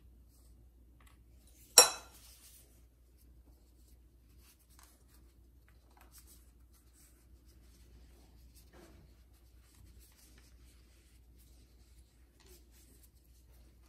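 A metal spoon clinks once, sharp and ringing briefly, about two seconds in, as it is put back into the glass bowl of crushed almonds. After it come only faint rustles and light taps from gloved hands folding and rolling a sheet of phyllo pastry on a wooden board.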